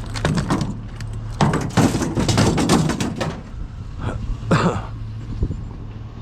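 A steady low hum with a run of irregular knocks and rustles for a few seconds, and one more short burst of them near the end.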